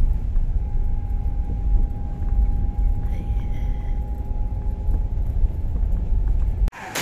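Road noise inside a moving car: a steady low rumble of engine and tyres, cut off suddenly near the end.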